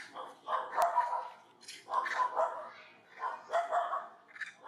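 Animal calls repeated in three bouts of about a second each, with a shorter call near the end. A single sharp click sounds just under a second in.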